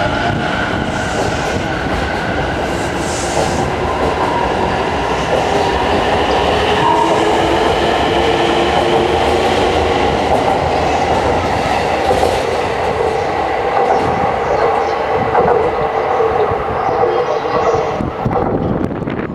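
Inside a JR East 255 series express train in motion: steady running noise with wheels clattering over the rails, overlaid with a whine of several steady tones.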